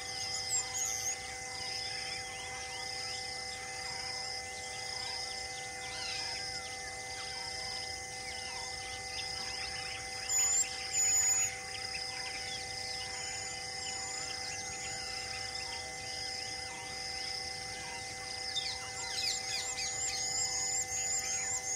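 Wild outdoor ambience of birds and insects: a high call repeating about once a second throughout, two loud short bird calls about halfway, and a fast run of repeated chirps near the end, over a steady hum of a few constant tones.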